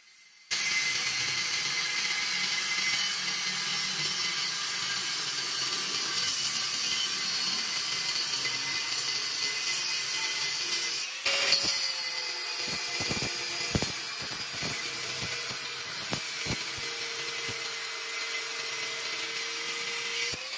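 Angle grinder with a thin abrasive cut-off disc cutting through a square steel bar: a steady, harsh grinding that starts about half a second in, breaks off briefly near the middle, and stops just before the end.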